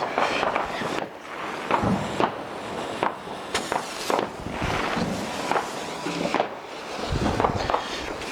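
Fireworks going off: irregular sharp bangs and cracks, about one or two a second, over a steady hiss, with heavier bangs near the end.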